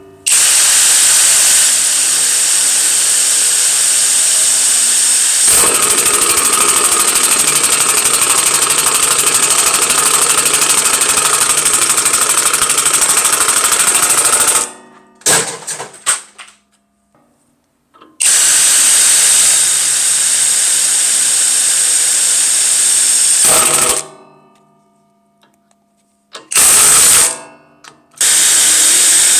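Kobalt 24V brushless 1/4-inch impact driver in self-tap mode driving self-drilling metal roofing screws through sheet metal, with the rapid hammering of its impact mechanism. It runs in several long spells, starting and stopping between screws, with a short, loudest burst near the end.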